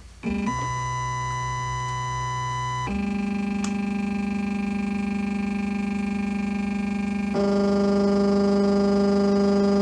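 Shapeoko Pro CNC router's stepper motors whining with steady pitched tones as the machine runs its automatic BitZero probing sequence. The pitch shifts to a new tone about three seconds in and again about seven seconds in as the moves change, with a brief dip right at the start and a single click near four seconds.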